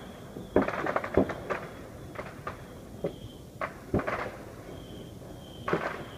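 A run of irregular knocks and clattering handling noises, several sharp ones in quick succession, with a faint high steady tone in the pauses between them.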